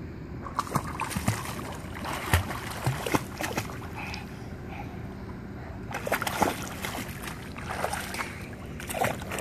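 Pool water splashing and sloshing as a small child in arm floaties kicks and paddles, in two spells of irregular splashes, the second starting about six seconds in.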